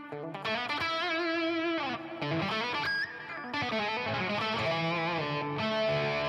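Headless multiscale six-string electric guitar played through an overdrive rig with its volume knob rolled back: single held notes with vibrato, bends and slides, re-picked every second or so.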